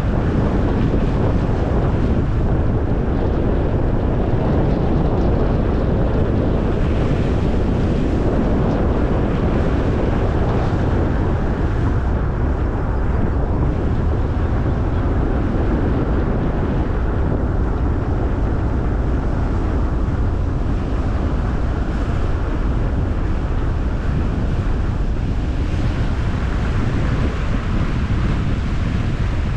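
Car driving at steady speed: constant low road rumble and wind rush, with wind buffeting the camera microphone.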